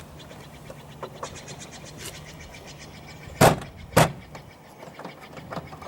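Two hard thumps about half a second apart on a car door's interior panel, forced home onto its clips. Faint clicking and rattling before them.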